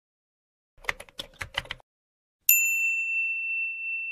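Subscribe-animation sound effects: a quick run of about six clicks like keyboard typing, then about two and a half seconds in a bright bell ding that rings on at one steady pitch.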